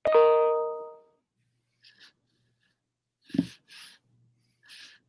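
A bright chime sounds once, a ding of a couple of notes that rings out and fades over about a second. About three seconds in come a soft thump and a few faint rustles.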